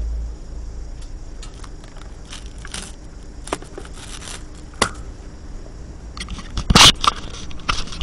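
Handling noise on the camera's own microphone: scattered clicks and rubbing as the camera is handled, getting busier toward the end, with a louder scrape and knock just before seven seconds in.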